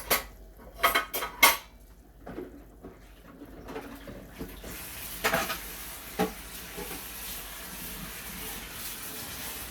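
Metal kitchenware clattering: several sharp clanks in the first two seconds as a drainer and pans are handled, followed by a steady sizzle from the chicken thighs cooking in the pan, with a couple of light knocks.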